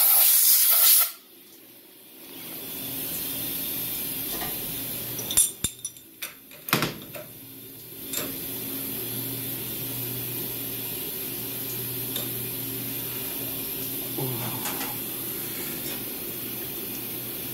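Compressed-air blow gun hissing, cutting off suddenly about a second in, then a steady hum. Around the middle, a quick run of metal-on-metal clinks and clanks as the machine vise is opened with its handle and the aluminum part is lifted out, with a single knock a little later.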